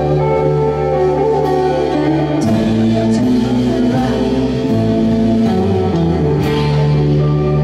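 Live band music: sustained electric guitar chords over bass, changing chord a few times, with occasional sharp percussion hits.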